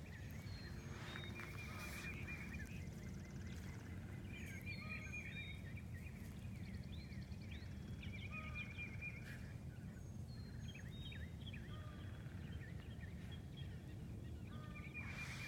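A chorus of many short, high, chirping animal calls, coming in bursts every couple of seconds over a low steady rumble.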